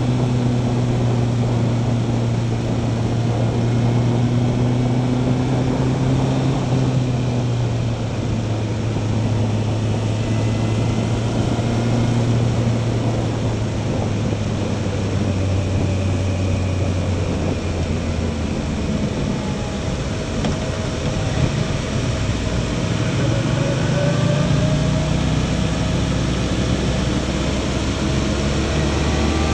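Onboard motorcycle engine running at a steady cruise over wind and wet-road tyre hiss. It drops in pitch as the bike slows in the second half, then revs up again near the end.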